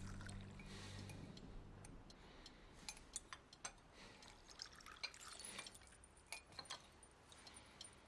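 Tea trickling from a metal teapot through a strainer into a cup while low music fades out in the first second or so. Then near silence with scattered faint, irregular ticks and drips.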